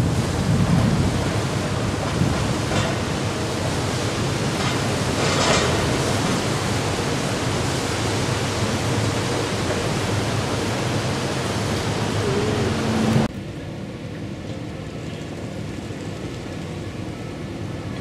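Wind buffeting the microphone over the rush of water on the deck of a lake passenger boat under way, with a strong low rumble. About 13 seconds in it drops abruptly to a quieter steady rush with a faint steady hum.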